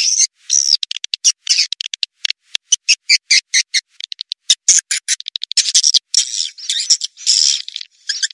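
Recorded swiftlet calls used as a lure track for swiftlet farming: rapid trains of dry clicks and buzzy high-pitched twitters in short bursts, separated by abrupt silent gaps.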